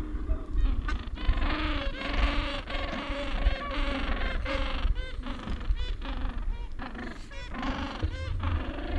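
Gentoo penguin colony calling: many braying calls overlapping, their pitch arching up and down again and again, over a low rumble.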